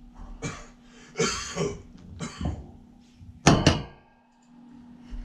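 Siberian husky puppy moving about in a wire crate, with a few short rustling sounds, then two loud knocks about three and a half seconds in as its muzzle bumps the camera.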